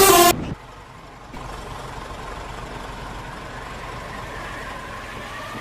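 Bus on the road: steady engine and road noise, growing louder about a second and a half in, with a faint rising whine near the end. In the first half second a loud multi-note pitched sound cuts off abruptly.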